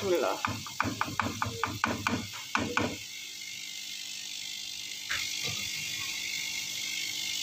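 Rapid clicking and clacking of tongs against a metal karahi as fried pakoras are lifted out of the oil, about a dozen clicks in the first three seconds; after that only a faint steady hiss.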